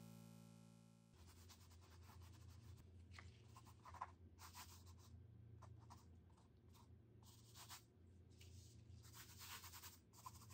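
Gloved fingers rubbing and smearing acrylic paint across a canvas: a series of short, faint scratchy strokes, some longer than others. An electronic tone stops about a second in.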